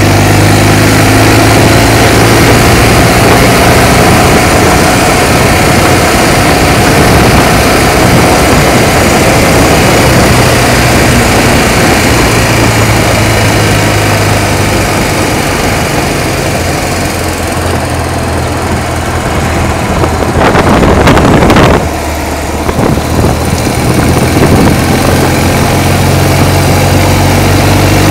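Sidecar motorcycle's engine running steadily on the road, under heavy wind and road noise. A little past the middle the engine note drops back for a few seconds, then a brief, loud rush of noise comes before the steady running resumes.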